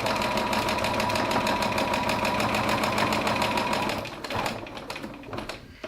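Sewing machine running steadily at speed, basting a seam, with a fast, even patter of stitches; it slows and stops about four seconds in, followed by a few light clicks.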